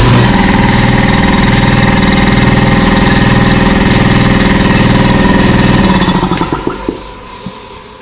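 Campbell Hausfeld belt-driven shop air compressor starting at once under its replacement electric motor and running steadily, repaired and working as it should. About six seconds in it shuts off and winds down over about a second.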